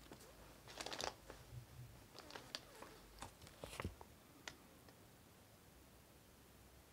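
Near silence with a few faint, short clicks and rustles, the clearest about a second in, dying away after about five seconds.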